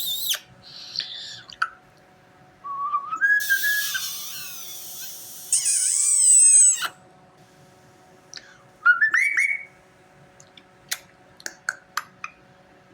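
Pet European starling singing a varied song: a rising whistle, a long harsh, rasping stretch topped by a loud high whistle with falling glides, then quick rising chirps and a string of sharp clicking smacks like shrill kissing noises.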